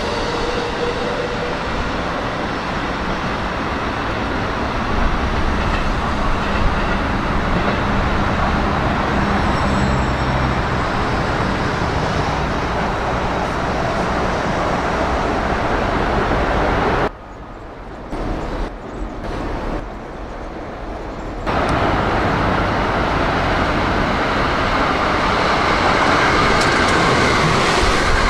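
JR West electric commuter trains, a 223-series special rapid among them, running past on the four-track line: a loud, steady rumble of wheels and motors on the rails. Past the middle it drops suddenly to a quieter, duller sound for about four seconds, then the loud running noise returns.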